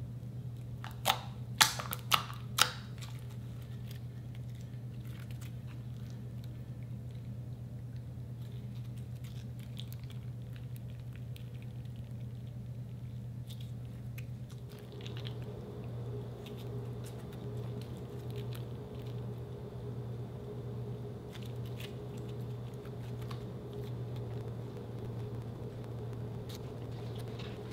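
Slime being stretched, folded and kneaded by hand, with four sharp clicky pops in the first few seconds, then softer squishing later on, over a steady low hum.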